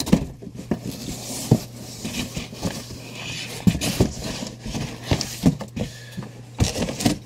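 Rummaging through a corrugated cardboard shipping box: cardboard scraping and rustling, with irregular knocks and clicks as its contents are moved about.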